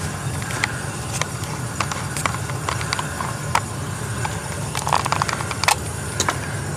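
Handling noise from a handheld camera being carried: irregular light clicks and rustles, one louder rustle about five seconds in, over a steady low hum.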